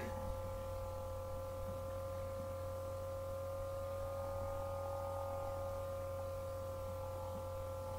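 Quiet background music: a steady drone of several held tones over a low hum.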